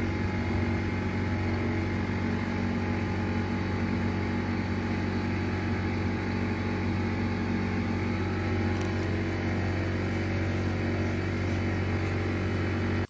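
Portable air compressor running with a steady, even motor hum while a tyre is being filled and its pressure checked.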